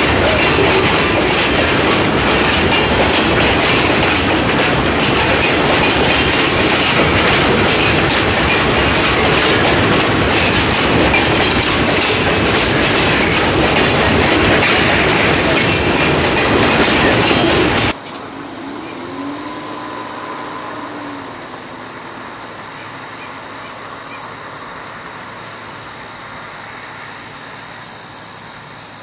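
Freight car wheels and trucks rolling past close by on the rail, a loud steady rumble with a clickety-clack. About 18 seconds in it cuts off sharply, and insects chirping in a fast, even, pulsing rhythm take over.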